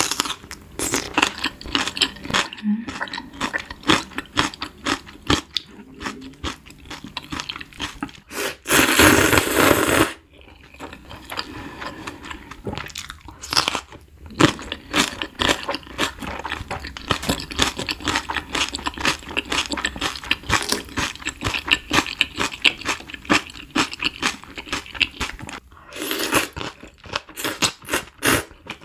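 Close-miked crunching and chewing of whole green chili peppers coated in red chili seasoning: a steady run of crisp crackles and clicks, with louder noisy stretches about nine seconds in and again near the end.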